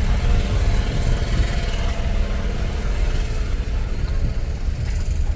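Car driving, with a steady engine and road rumble heard from inside the cabin.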